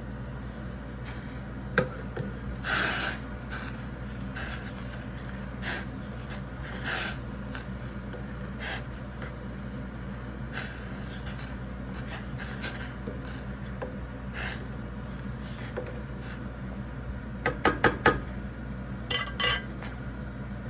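Metal cookware clinking and scraping, a utensil knocking against a pot, in scattered strokes with a quick run of clinks near the end, over a steady low hum.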